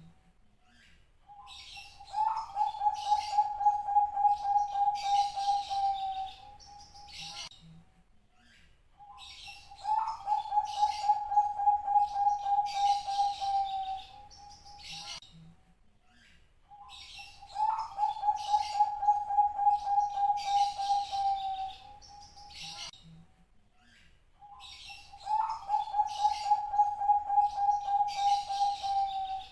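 Bangkok-type zebra dove (perkutut) cooing: four long phrases about seven and a half seconds apart, each opening with a short rising note and running on as a rapidly pulsing, rolling coo that sags slightly in pitch over about four seconds.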